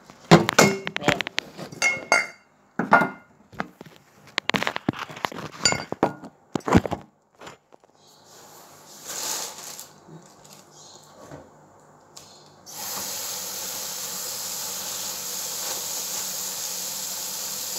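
Clicks, knocks and plastic rustling from raw prawns being handled in a plastic bag in a stainless steel sink. About two-thirds of the way in, a kitchen tap is turned on and water runs steadily onto the prawns.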